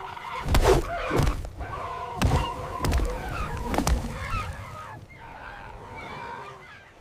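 A rooster squawking during a scuffle, with several heavy thuds and hits in the first four seconds, then quieter squawks.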